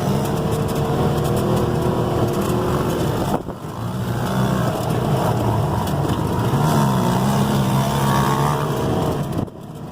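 ATV or side-by-side engines revving, the pitch rising and falling with the throttle. The sound briefly drops about three and a half seconds in and again near the end.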